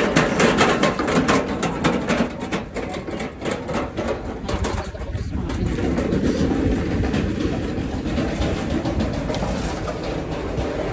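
Busy walkway ambience picked up by a handheld phone on the move: a steady din of crowd and city background, with a run of rapid clicks and rustles in the first four seconds.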